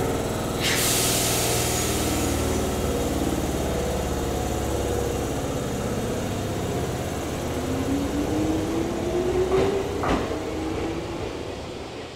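Izuhakone Railway 3000 series electric train pulling away: a sharp hiss of air released about half a second in, a steady low hum of the train, then a rising whine as it gathers speed and two knocks from the wheels near the end.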